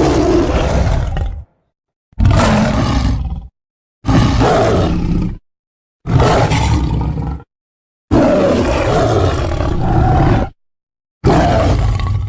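Film sound-effect roars of a sabre-toothed cat (Smilodon), played one after another with dead silence between them: five roars of about a second and a half each, the fourth lasting about twice as long, and a sixth beginning near the end.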